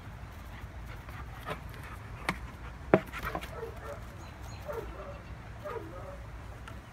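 A Doberman whining in short, high cries, with a sharp knock about three seconds in.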